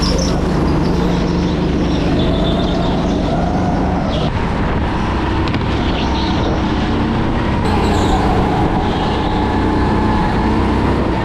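Racing kart engine running steadily and loudly.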